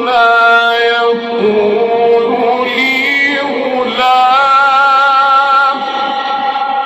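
A man reciting the Quran in a melodic chanted style, drawing out long held notes with wavering ornaments; near the middle one long note is held steadily for a couple of seconds.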